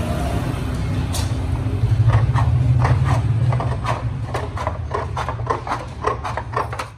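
Hand tin snips cutting thin stainless steel sheet, a rapid series of short crisp snips at about three a second. Under them runs a loud steady low engine-like hum that cuts off abruptly at the end.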